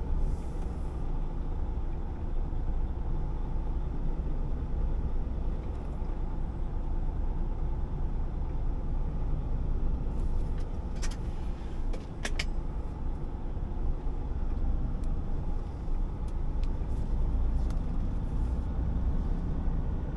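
Heavy truck's engine and road noise heard from inside the cab: a steady low rumble, with a few sharp clicks about eleven and twelve seconds in.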